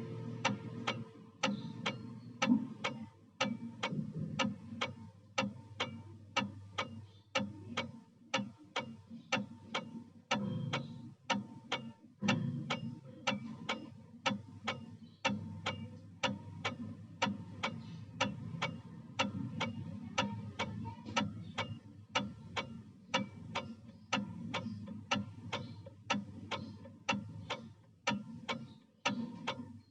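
Vintage Seiko wall clock ticking, a steady, evenly spaced run of sharp ticks.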